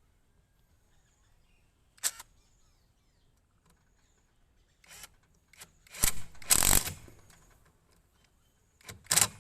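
Handling noise from tools and parts being put down: a sharp click about two seconds in, then a few knocks and a short clatter in the second half, with quiet between.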